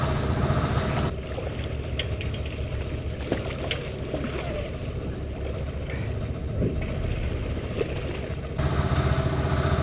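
Fishing boat's engine running with a steady low rumble, with water splashing as a tangled porbeagle shark thrashes at the surface beside the hull. The sound turns quieter and duller about a second in and comes back fuller near the end.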